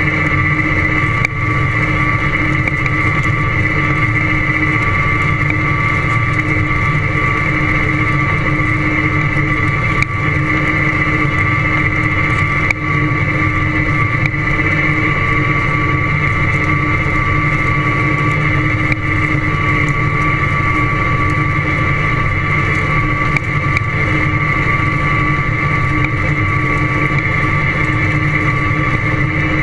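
John Deere tractor running steadily under way across a corn stalk field, heard close up from the front end, with a steady high whine over the engine. A few sharp knocks break in now and then.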